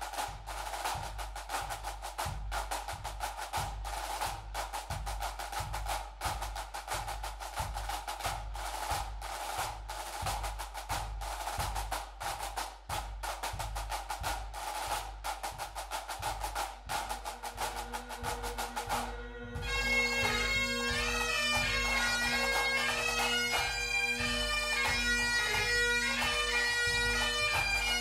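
Pipe band drum corps, snare drums and bass drum, playing a steady march beat. About two-thirds through, the Highland bagpipe drones come in, and shortly after the chanters start the tune, with the sound getting louder.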